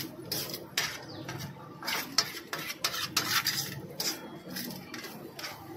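Metal spatula and ladle scraping and clinking against a large shallow metal pan as thick egg masala is stirred and scooped, in irregular strokes about one or two a second.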